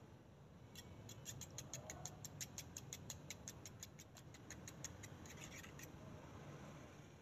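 A fork whisking raw eggs in a small bowl, its tines clicking quickly and evenly against the bowl's side, about six clicks a second. The clicks stop about six seconds in.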